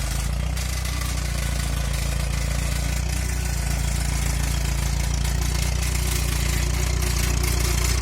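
Engine idling steadily with a low, even rumble, growing slightly louder toward the end. It is making what the owner calls a strange noise.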